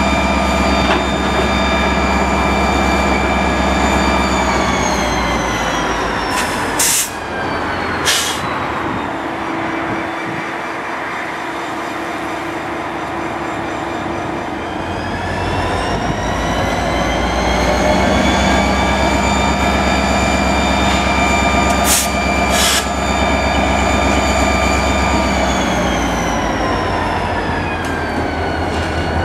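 Florida East Coast diesel locomotive 427's engine running under power with a high whine, easing back toward idle about five seconds in, powering up again around sixteen seconds and easing off near the end. Two short sharp hisses come around seven and eight seconds, and two more around twenty-two seconds.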